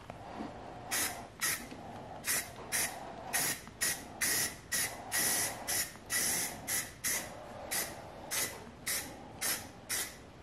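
Aerosol spray can sprayed in quick short bursts, about two a second, each a hiss with a faint whistle.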